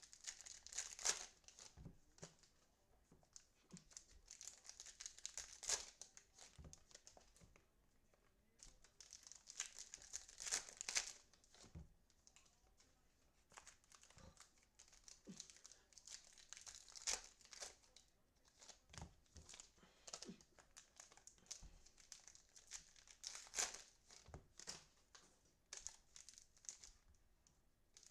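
Plastic and foil packaging of trading-card boxes and packs crinkling and tearing as it is unwrapped, in short bursts with pauses between.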